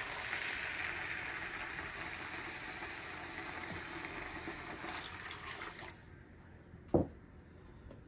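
Two cups of water poured onto rice frying in butter and oil: a loud hiss that slowly dies away over about six seconds. A single sharp knock follows about seven seconds in.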